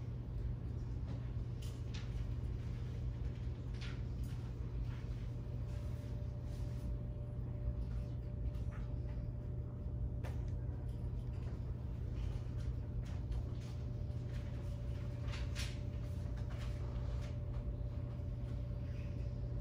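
Room tone of a large meeting room: a steady low hum with a faint steady tone above it, and a few soft clicks and rustles now and then.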